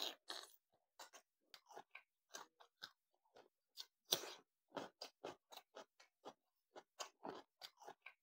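A man chewing food close to a clip-on microphone: short, irregular mouth sounds, about two or three a second, with brief silences between.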